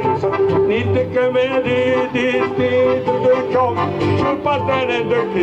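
Live folk band music: a man sings into a microphone over accordion and acoustic guitar playing a dance tune.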